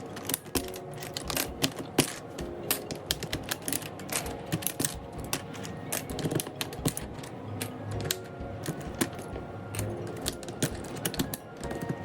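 Ajazz AK820 Pro mechanical keyboard giving a dense, irregular run of sharp plastic clicks and clacks of varying loudness.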